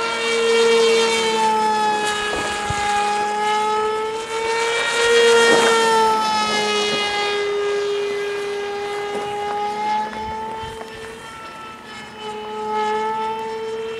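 Electric motor and propeller of a homemade RC model airplane whining in fast flight. The pitch wavers, rises to its loudest about five seconds in and then drops as the plane passes, with a short dip near eleven seconds.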